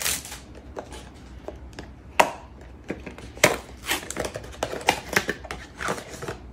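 Cellophane wrap being torn off a perfume box, then the cardboard box and its paper insert being opened by hand: irregular crinkles and sharp crackles, the loudest about two and three and a half seconds in.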